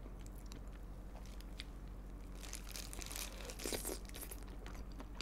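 A person biting into and chewing a piece of fried chicken, the meat wrapped in its own skin, with faint crunching that is loudest from about two and a half to four seconds in.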